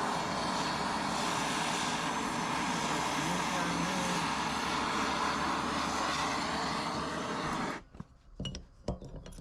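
MAP gas torch flame hissing steadily as it heats the small end of a connecting rod for a wrist pin press-fit, cutting off abruptly near the end. Light metal clicks and knocks follow.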